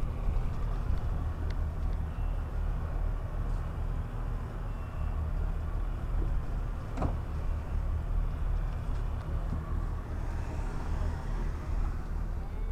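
A boat's engine running with a steady low hum, heard on board, with a single sharp click about seven seconds in.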